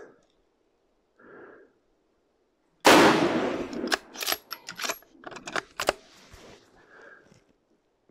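A single rifle shot from a Savage 110 Storm in 6.5 Creedmoor about three seconds in, with a long ringing tail. About a second later comes a quick run of metallic clicks and clacks as the bolt is opened and worked to extract the spent case. The shooter finds the bolt slightly stiff to open after these shots, which he takes as a sign of rather high pressure.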